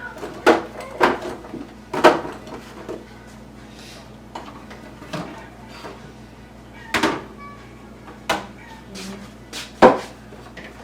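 Food containers and items being moved and set down on refrigerator shelves: a string of separate knocks and clunks spread unevenly, the loudest near the end.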